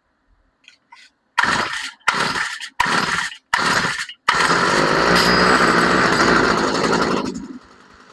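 Stihl FS45 string trimmer pull-started: four quick pulls of the recoil starter, then its small two-stroke engine catches and runs loud for about three seconds before dropping off sharply near the end.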